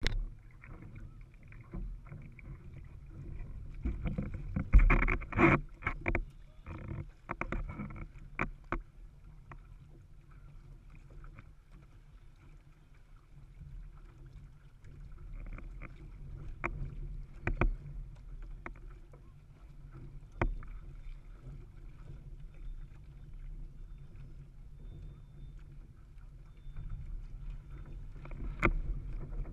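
Sea water sloshing and lapping around a windsurfer and board, heard muffled through a waterproof camera housing at the surface. A burst of splashes and sharp knocks comes about five seconds in, with single knocks scattered through the rest.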